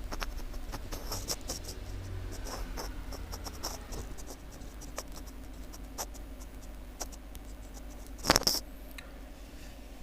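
Light scratching and small clicks of hand tools working on a phone battery's circuit board, with one louder brief clatter about eight seconds in.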